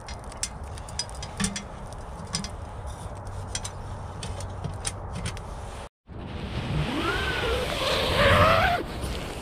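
A wood fire crackling and popping inside a small steel tent stove. Then, after a short break, a tent door zipper is pulled with a rasp that rises and falls in pitch, loudest near the end.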